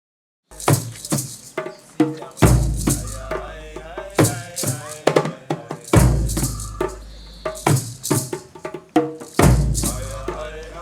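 Music: a percussive track of clicks and rattles over deep held bass notes that change about every three and a half seconds, starting after a brief silence.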